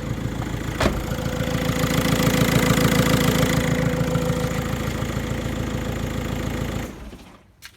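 Electric radiator cooling fans of a VW 1.9 TDI running at full speed with a steady drone, although the coolant is only at about 50 °C. There is a sharp click about a second in, and about seven seconds in the fans switch off and the sound drops away.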